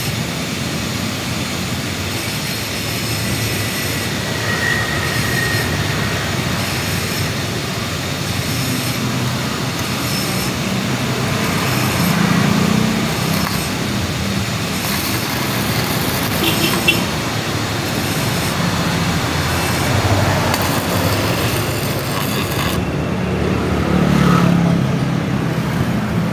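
Stick (arc) welder running, the arc crackling and hissing steadily as a rod is welded onto the inner race of a scooter final-drive bearing to pull it out.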